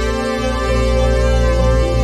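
Background music: sustained chords held over a deep, steady bass.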